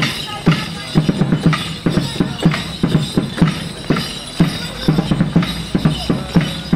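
Morris dance music: a bass drum beats a steady rhythm of about two strokes a second under a tune played on a string instrument.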